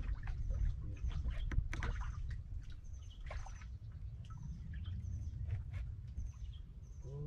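Wind rumbling on the microphone, with scattered light knocks and clicks and faint short high chirps.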